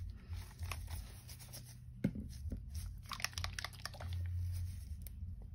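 Plastic dropper bottles of acrylic paint being handled on a desk: runs of small clicks and rattles in two bursts, with one sharper knock about two seconds in, over a low steady hum.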